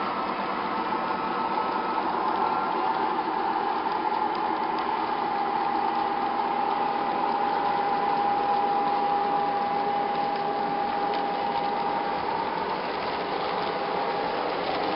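O gauge model freight train rolling past on its track: a steady clattering rattle of wheels and cars, with a steady high whine that is strongest in the middle.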